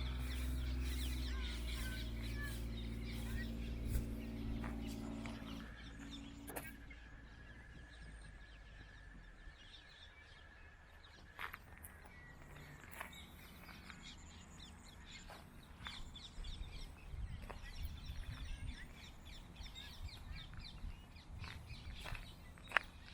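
Small birds chirping and calling outdoors, with a low hum of steady tones that fades out over the first six seconds.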